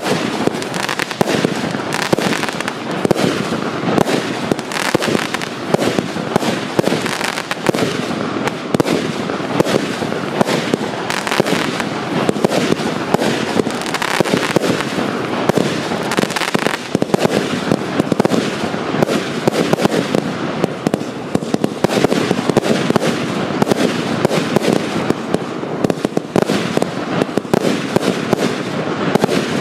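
Wolff 'The Throne' 346-shot double fan-shaped firework compound firing continuously: a dense, unbroken stream of rapid shots and bursts with no pause.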